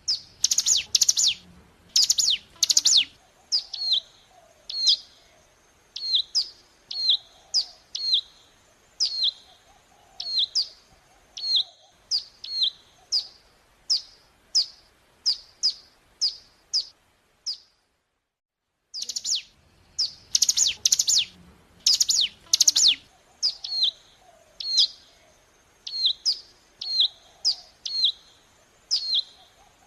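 Ciblek gunung (a prinia) song: a loud series of sharp, high notes that sweep downward, first a quick burst, then a steady run at about one to two notes a second. Near the middle it stops for about a second and the same sequence starts over, as a looped recording does.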